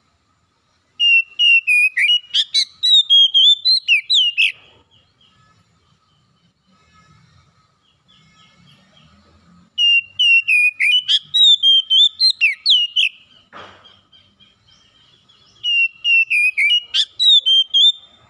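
Oriental magpie-robin singing: three bursts of rapid, sweet whistled phrases of two to three seconds each, separated by pauses. A brief rasp comes near the middle of the second pause.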